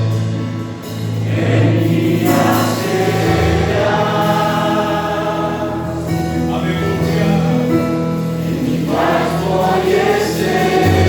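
Gospel song: a choir singing in harmony over an instrumental backing with steady bass notes.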